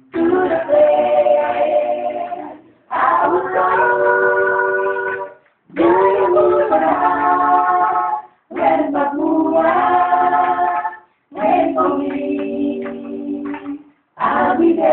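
A small group of women and a man singing together without accompaniment, in short phrases of about two and a half seconds with brief pauses between them.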